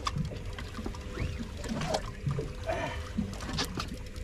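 Water lapping and sloshing against a small boat's hull, over a steady low rumble, with scattered light clicks.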